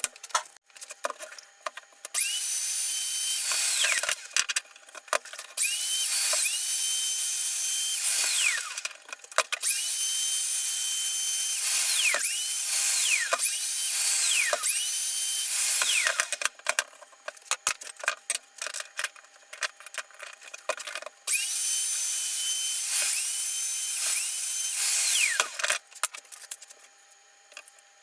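Power drill running in several short bursts of one to three seconds, each spinning up to a steady whine and winding down as the trigger is let go, with small clicks and handling sounds between the bursts.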